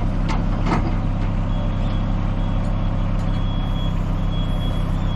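A large engine running steadily on a jobsite, with a couple of short knocks about half a second in and a high-pitched beeping alarm starting about a second and a half in and repeating unevenly.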